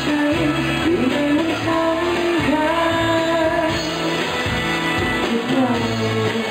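A man singing a pop song live into a handheld microphone, his voice amplified over instrumental accompaniment, holding long notes that glide up and down.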